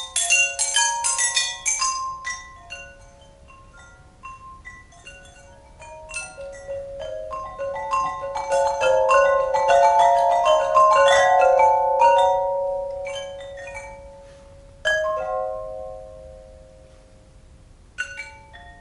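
Tuned pipes struck with sticks and mallets by three players, a pattern of quick interlocking ringing notes. The notes thin out after about two seconds, build to a dense loud passage around ten seconds in, and a single strong stroke near fifteen seconds is left to ring before playing resumes near the end.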